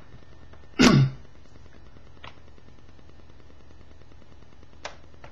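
Handling of a laptop power plug: one loud, short knock about a second in, then a faint click near the end, over a steady low hum.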